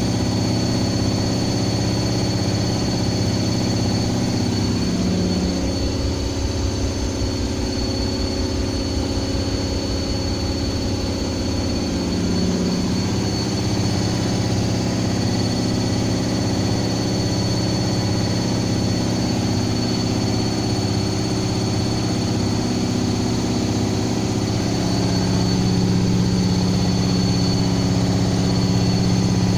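Washing machine running with a steady motor hum and a thin high whine. The hum wavers for several seconds after about five seconds in, then steadies and grows a little louder near the end.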